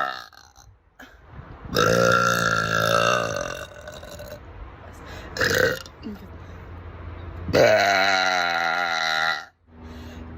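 A woman burping loudly three times: two long, drawn-out burps of about a second and a half each, with a short one between them.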